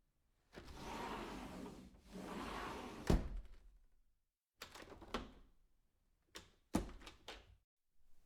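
A door being swung and shut: two swishing sweeps end in a solid thud about three seconds in, followed by a series of sharp latch and handle clicks and another knock about seven seconds in.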